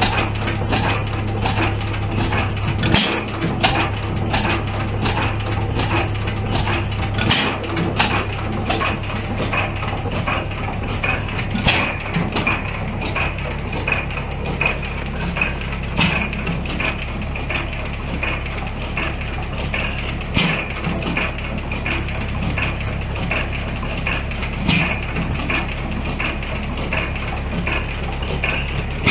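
12 hp Hercules single-cylinder hit-and-miss stationary engine running, with sharp, irregularly spaced exhaust pops and metallic clatter over a steady low hum.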